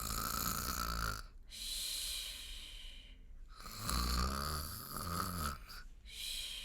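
A woman imitating a bear snoring: two long rattling snores, each followed by a long airy breath.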